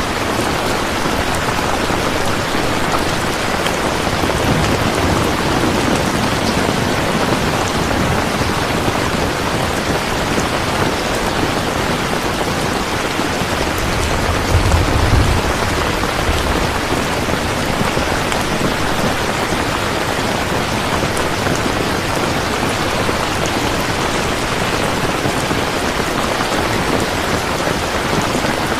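Steady, dense rainfall with a continuous hiss of drops. A brief low rumble swells about halfway through.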